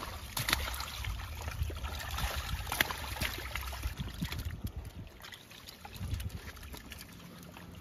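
Live fish thrashing and splashing in a seine net in shallow pond water, with water trickling and scattered sharp slaps of fish and net being handled.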